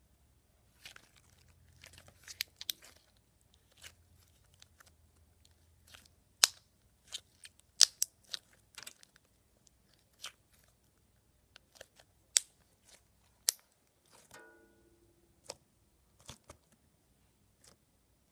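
Slime being handled by hand: a run of irregular sharp pops and clicks, the loudest about six and eight seconds in, with a short squeak about fourteen seconds in.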